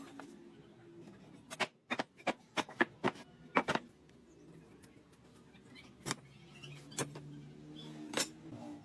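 A quick run of about a dozen sharp knocks and clicks, then three single knocks spaced a second or so apart, over a faint steady hum.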